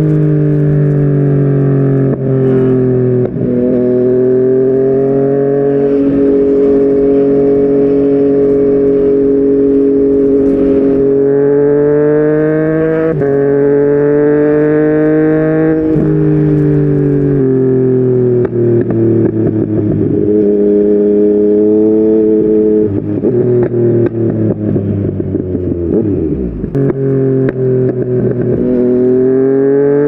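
Yamaha MT-09's inline-three engine through a Yoshimura R55 slip-on exhaust, accelerating hard through several upshifts, each a sudden drop in pitch. About halfway through it rolls off and slows, the exhaust note turning choppy as the revs fall, then it pulls away again near the end.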